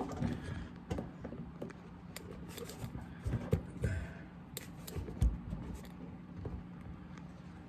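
Scattered light clicks, knocks and rustling over a faint steady hum.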